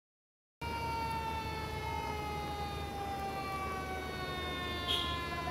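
Fire engine siren sounding as the truck approaches, one long tone falling slowly in pitch over a low engine rumble; it cuts in about half a second in.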